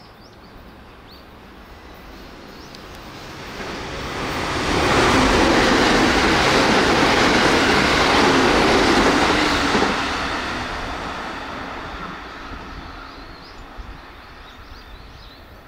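JR Central 313 series electric train passing at about 95 km/h. The rush of wheels on rail swells over a few seconds, holds loud for about five seconds, then fades away.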